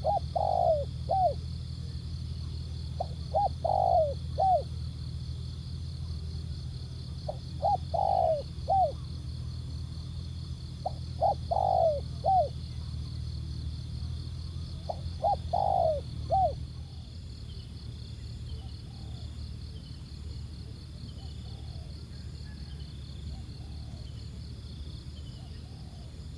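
Spotted dove cooing: five phrases of a few falling notes, about one every four seconds, then only faint calls from about 17 s on.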